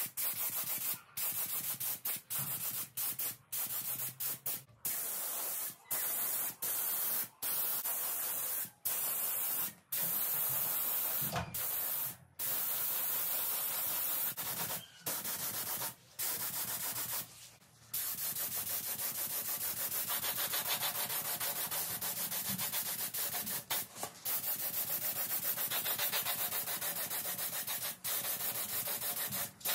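Compressed-air gravity-feed spray gun spraying paint, a steady hiss. It is cut short by frequent brief stops in the first half, then runs in longer passes.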